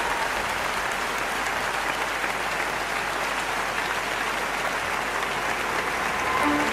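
Audience applauding steadily, with music starting up again near the end.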